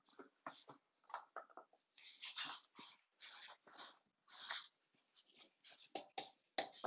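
A hand brushing and rubbing across plank flooring in several short, soft hissing swipes, with scattered light taps and a couple of sharper knocks near the end.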